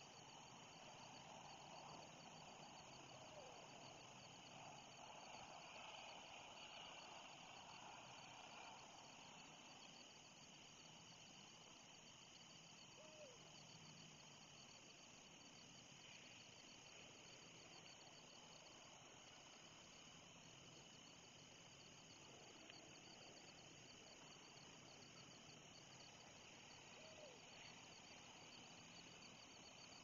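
Faint evening insect chorus: a steady, evenly pulsing high trill over a low outdoor hiss. Three brief faint call notes come through, a few seconds in, near the middle and near the end.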